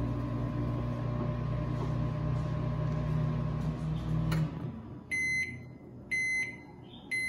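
Microwave oven running with a steady hum, which stops with a click about four seconds in. Then come the end-of-cycle beeps, one high beep about every second, three of them, signalling that the heating time is over.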